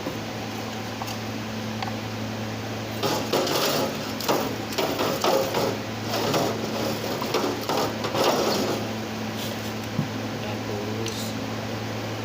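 Irregular clinking and scraping of hand tools and metal parts being handled, in clusters between about three and nine seconds in, over a steady low hum.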